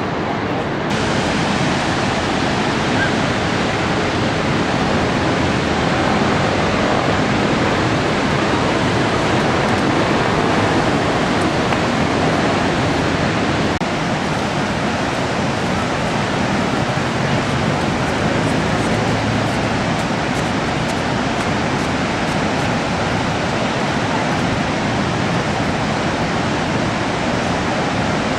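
Steady roar of Niagara Falls and the churning river at its foot: a dense, even rush of falling and crashing water.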